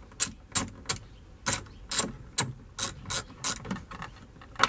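Hand ratchet with a 10 mm deep socket clicking stroke by stroke, a few sharp clicks a second in uneven runs, as it backs out a mirror's mounting bolts through a truck door. There is one louder click near the end.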